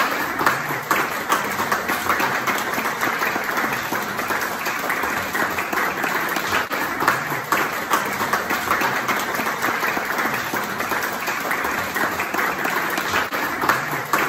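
A small audience applauding, a dense and steady patter of hand claps.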